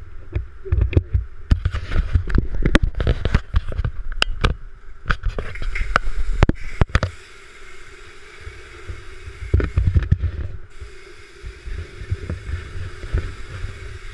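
A self-service car wash's pressure-washer pump running with a steady hum under a low rumble. Clusters of sharp, irregular knocks and bumps come through the first seven seconds or so and again about ten seconds in.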